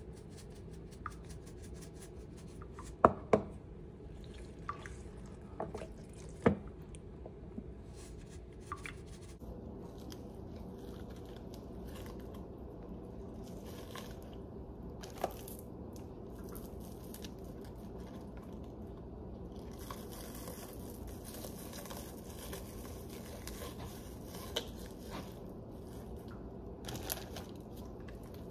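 Hands handling a whole raw chicken on a wooden cutting board: wet squishing and rubbing of skin and flesh, with a few sharp knocks, the loudest about three and six and a half seconds in, over a low steady hum.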